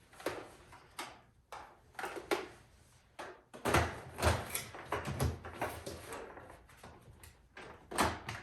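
Hard plastic parts of a Shark Navigator Lift-Away vacuum knocking and rattling as they are handled and pushed together, a run of sharp clicks and knocks, busiest in the middle, with a sharp click near the end as a part snaps into place.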